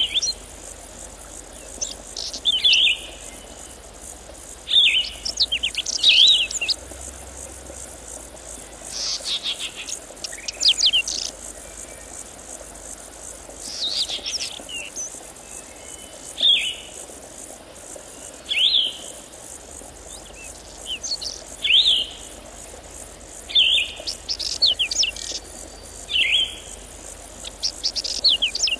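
A songbird singing short, repeated phrases, one about every two seconds, over the steady high buzz of insects.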